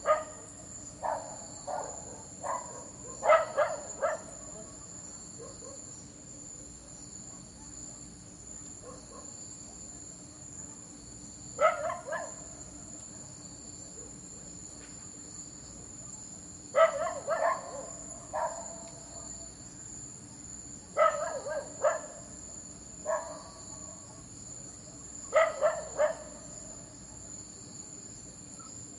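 A dog barking in short bouts of a few barks each, about five bouts spread over the stretch, over a steady high chirring of crickets.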